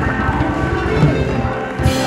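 Music playing: held tones over a low, pulsing beat, with one sharp hit near the end.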